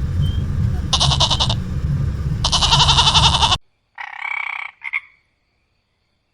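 A frog croaking: two pulsed, rattling calls over a steady low hum, cutting off suddenly. After the cut come two short, pitched animal calls.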